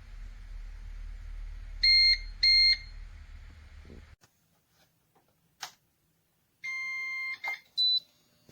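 CyberPower CP1500AVRLCD3 UPS beeping: two short high beeps about half a second apart over a low hum. The hum cuts off suddenly about four seconds in. After a click, one longer, lower beep and two short, higher beeps follow near the end.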